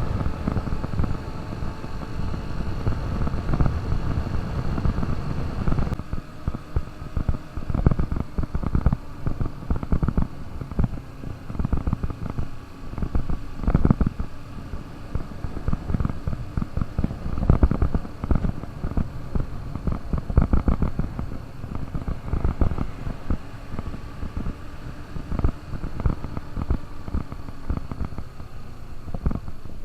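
KTM RC200 BS6's single-cylinder engine running steadily while riding, then from about six seconds in, wind buffeting the microphone in irregular gusts that partly cover the engine.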